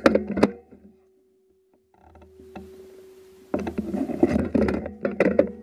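Close clicking, knocking and rustling of handling near the microphone. It stops for about a second shortly after the start, then resumes busily about three and a half seconds in.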